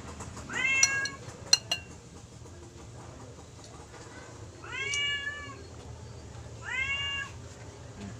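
Domestic cat meowing three times, each meow rising and then falling slightly in pitch: about a second in, at about five seconds, and near seven seconds. A few sharp clicks fall between the first two meows.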